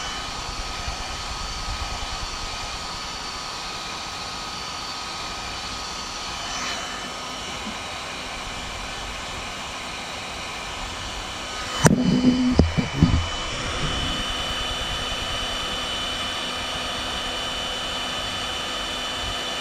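Electric heat gun blowing steadily with a whine, heating stiff black polyethylene pipe to soften it. About twelve seconds in there is a sharp click and a few knocks, and then the heat gun runs on.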